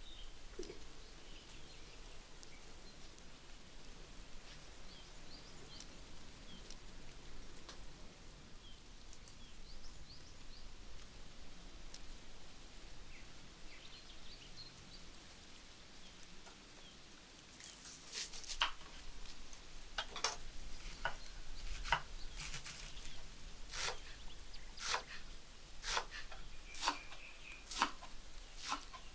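Faint bird chirps over a steady background hiss. From about two-thirds of the way in, sharp knocks come roughly once a second.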